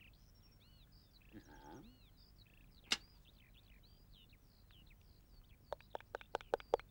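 Faint chirping of small birds, with a single sharp click about three seconds in. Near the end a quick run of rhythmic taps begins, about six a second.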